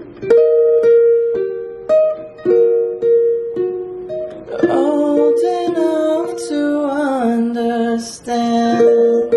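Ukulele fingerpicked in a slow plucking pattern, single notes ringing one after another. About halfway in, a voice sings along over the picking for a few seconds.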